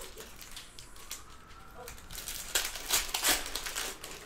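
Trading-card pack wrapper crinkling as it is handled and opened. There is light rustling at first, then three sharp crinkles a little past the middle.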